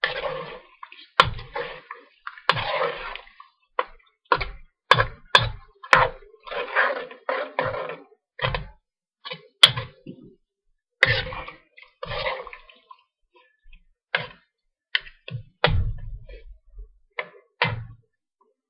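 A metal spoon stirring a saucy chicken and vegetable stir fry in a large metal wok: irregular scrapes and sharp clinks of the spoon against the wok, with wet sloshing of the sauce, easing off briefly about two-thirds of the way through.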